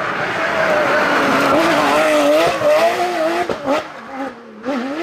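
Porsche 911 GT3 rally car's flat-six engine at high revs, its pitch wavering as the throttle is worked. About three and a half seconds in the engine lifts off and goes quieter, with short revs rising and falling near the end.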